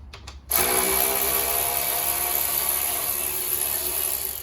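Power drill-driver running an 8 mm fan-mounting screw out. The motor spins up about half a second in, then runs steadily for nearly four seconds before stopping.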